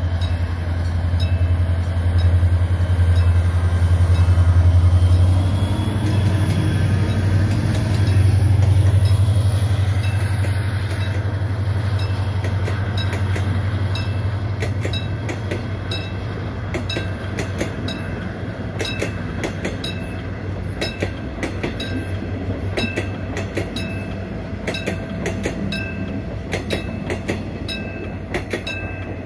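Diesel locomotive passing with its engine running, a loud low drone that is strongest for the first several seconds and then eases as it moves off. It is towing a string of unpowered new subway cars, whose wheels then click steadily over the rail joints, the clicks coming more and more often, some with a short metallic ring.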